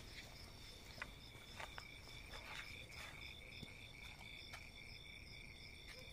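Faint, steady chirping of crickets at night, in several high pitches at once, with a few faint clicks scattered through.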